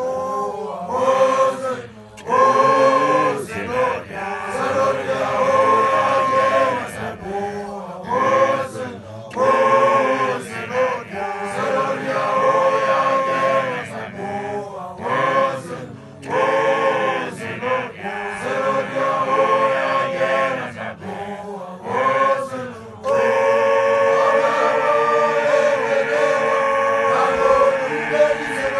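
Group of Sesotho initiates (makoloane) chanting a song together in short repeated phrases with brief breaks. About 23 seconds in, the singing turns into a continuous held chorus.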